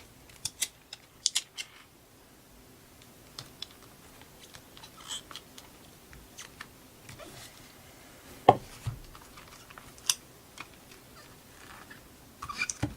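Adhesive tape and paper being handled while taping a loose page into a booklet: scattered small clicks and rustles, with one sharper knock about eight and a half seconds in.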